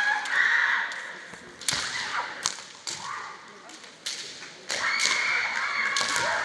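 Kendo kiai: high-pitched shouted yells from female fencers, one at the start and a longer one from a little before five seconds in, with sharp cracks of bamboo shinai clashing and stamping feet on the wooden floor in between.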